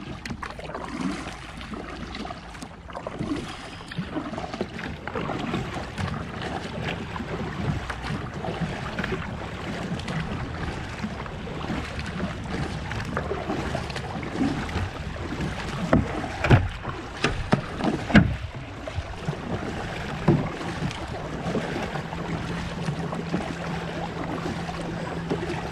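Kayak paddled hard: paddle blades stroking and splashing through the water on alternate sides, with water rushing and lapping along the plastic hull. A few sharper splashes or knocks stand out about two-thirds of the way through.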